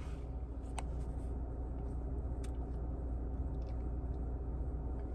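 Steady low hum inside a car's cabin, with a few faint clicks and small handling sounds.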